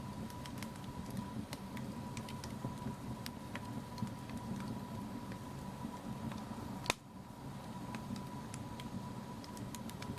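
Wood fire crackling in a fireplace: a steady low rumble of flames with scattered small pops and snaps, and one louder snap about seven seconds in.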